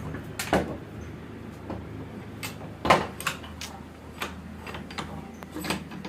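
Scattered sharp metallic clinks and knocks of tools and parts being handled, the loudest about three seconds in, over a steady low hum that fades near the end.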